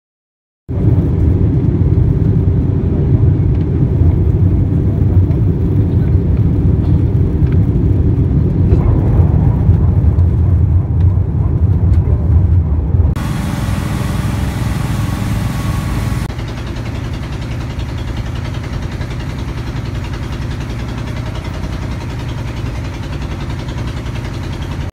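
Loud, steady low drone of an aircraft in flight. About halfway through it cuts to a brief hiss, then to the quieter, steady hum of a wooden riverboat's engine running.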